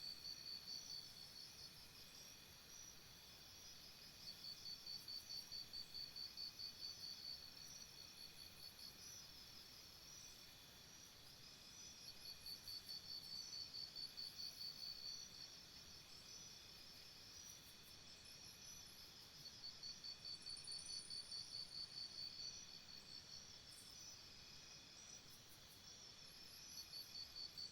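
Faint insect chorus: one insect's pulsing call, about four pulses a second, comes in bouts of a few seconds roughly every seven or eight seconds, over a steady high drone of other insects and scattered faint higher chirps.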